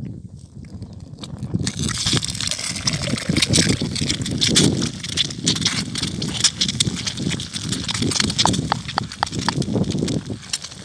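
Egg frying in a small pan over an open wood fire: a steady sizzle with fine crackles, starting about two seconds in, over a low rumble.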